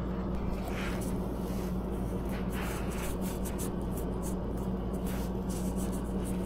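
A steady low hum, with faint, irregular scraping and ticking over it.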